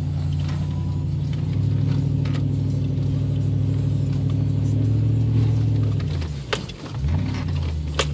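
A 2001 Toyota Tundra 4x4's engine pulling steadily over rough ground, heard from inside the cab. About six and a half seconds in, the engine note drops away briefly and then picks up again. Two sharp knocks come about a second and a half apart near the end.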